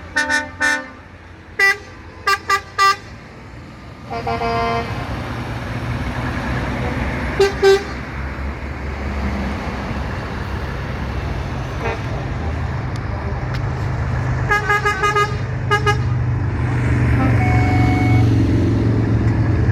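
Trucks in a passing convoy sounding their horns: bursts of short toots, a longer blast about four seconds in, a quick run of toots later on and a held note near the end. A steady low rumble of truck engines runs underneath and grows louder near the end.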